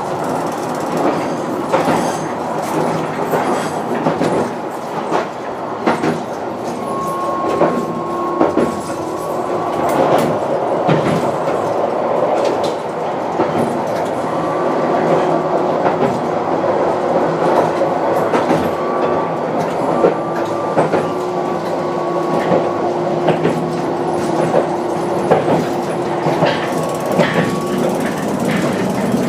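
Hankai Tramway 'Sakai Tram' running along the track, heard from inside the car: a steady rumble with wheels clicking over rail joints. A steady electric motor whine comes in about seven seconds in and fades out near the end.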